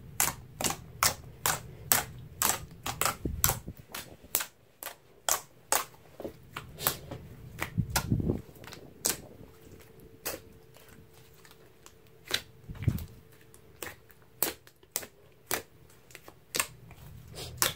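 Thick slime being poked, pressed and folded by hand, giving a string of sharp popping clicks, about two a second, as trapped air pockets burst. Softer squishing and handling noise runs beneath.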